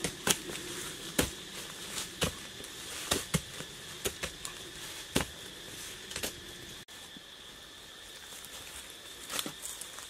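Wooden digging sticks jabbing and scraping into dry forest soil, irregular knocks about once a second, fewer in the last few seconds. Insects drone steadily behind.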